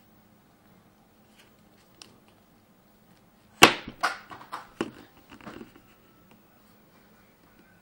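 Sharp plastic clicks and knocks from a small mobile phone being handled close to the microphone with its back open. There is one click about two seconds in, then a quick cluster of louder clicks and scrapes from about three and a half to six seconds, the first the loudest.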